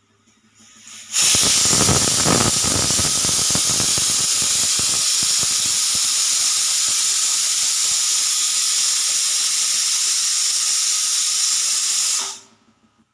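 Pressure cooker whistle blowing: a loud, steady jet of steam hisses out for about eleven seconds, spluttering and rattling in the first few seconds, then cuts off suddenly.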